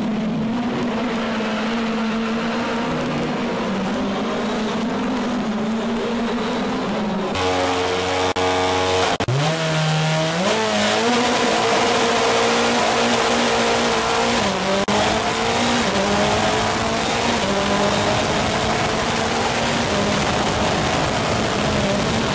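Formula Renault single-seater engines. First comes the even drone of race cars running, then about seven seconds in the onboard engine is held at steady revs. At the start it is launched and climbs in pitch through a string of upshifts, each a short dip in pitch, as it accelerates among the field.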